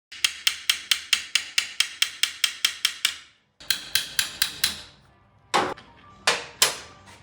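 Hammer tapping on metal: a quick even run of light strikes at about four a second, a second shorter run after a brief pause, then three heavier blows near the end.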